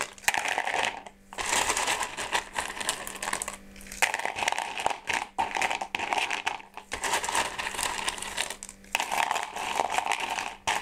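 Small stones being loaded into the bottom of a flowerpot as a drainage layer, clattering and rattling against each other and the pot in several rounds with short pauses between.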